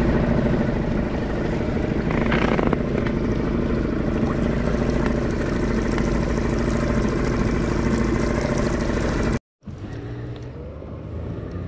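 A 2.5 hp Suzuki outboard motor runs steadily, pushing a small kayak along. About nine seconds in, the motor sound cuts off suddenly and a much quieter stretch follows.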